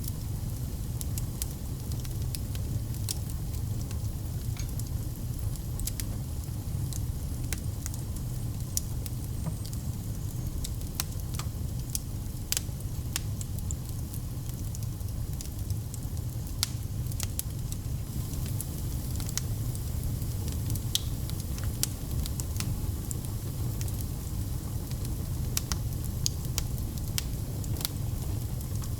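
Wood fire burning in a fireplace: a steady low rumble of the flames with frequent sharp crackles and pops scattered at irregular intervals.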